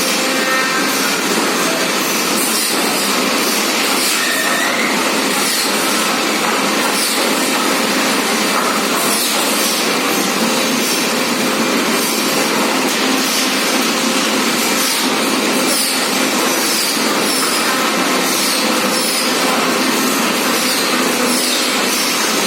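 A machine engine runs steadily throughout, a dense even noise with no lulls, with many short high falling chirps scattered over it.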